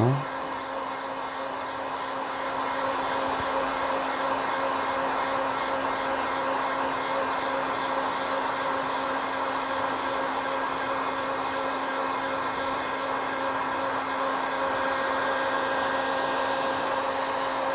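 Handheld electric heat gun (industrial hot-air dryer) running steadily. The rush of blown air sits over a constant motor hum.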